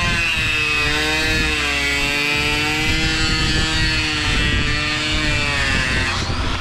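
Die grinder with a small cutoff wheel cutting a slot in a black plastic bumper part. Its high motor whine dips and wavers in pitch as the wheel bites into the plastic, and climbs near the end as the load comes off.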